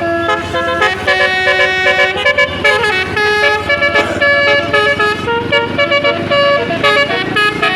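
Bus 'Basuri' telolet multi-tone air horn playing a quick tune, its notes changing several times a second.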